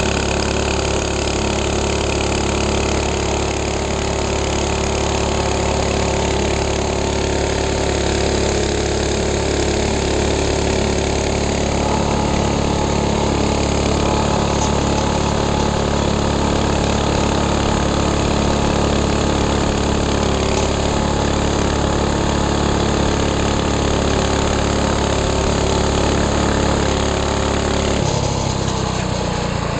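Minibike engine running steadily at cruising speed on the road, its note holding even. Near the end the engine speed drops and its pitch falls.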